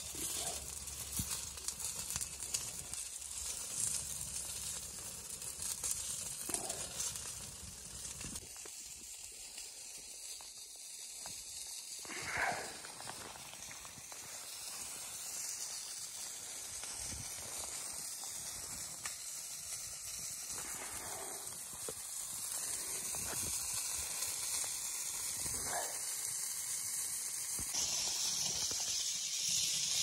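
Steady hiss of food sizzling on a wire grill over a wood-burning tent stove, with a few faint knocks and one louder knock about twelve seconds in.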